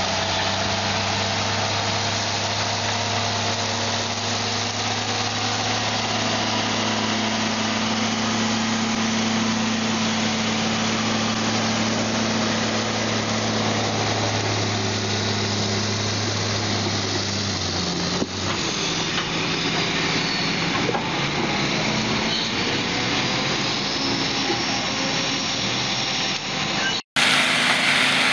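Heavy off-highway logging truck's diesel engine running steadily as the overloaded truck crawls along a gravel logging road, a low, even hum. About two-thirds of the way in the sound changes to a rougher, noisier mix of engine and road noise, and just before the end it cuts off abruptly and another truck's engine takes over.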